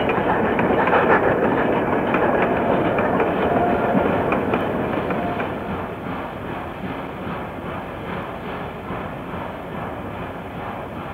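Steam-hauled train rolling along the track with a steady clickety-clack of wheels over rail joints, growing fainter from about halfway through.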